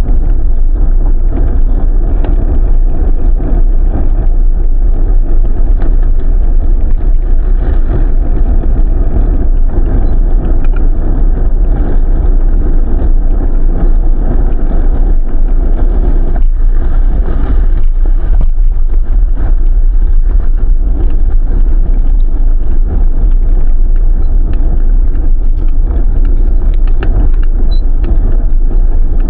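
Loud, steady wind rumble on the microphone of a camera travelling along a road.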